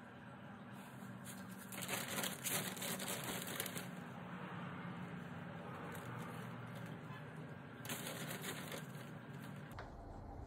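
Plastic potting-mix bag rustling and crinkling as soil is handled out of it, in louder spells about two seconds in and again near eight seconds.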